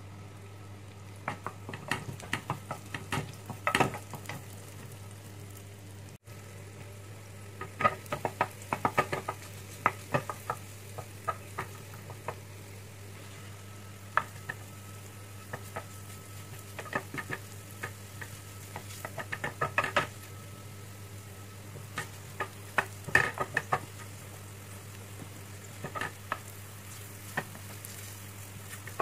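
Wooden spatula stirring and tapping in a small nonstick pan of garlic and sliced mushrooms frying in butter: groups of quick clicks over a steady low sizzle.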